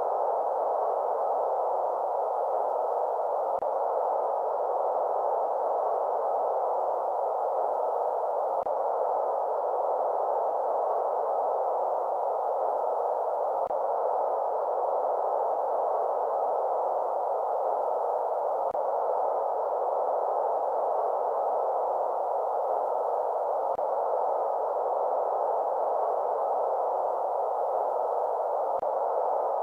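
Steady synthetic white-noise track for lulling a baby to sleep: an even, unbroken shushing hiss, filtered so it sits in the middle pitches with little deep rumble or high sizzle.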